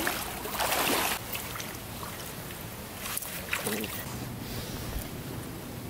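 Shallow creek water splashing and sloshing around wading legs and a landing net holding a freshly caught steelhead, louder in the first second, over the steady run of the stream.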